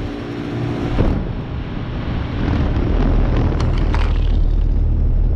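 2009 Carrier Performance 5-ton heat pump outdoor unit running in heat mode: the fan rushing air over a low, steady hum, with a single knock about a second in.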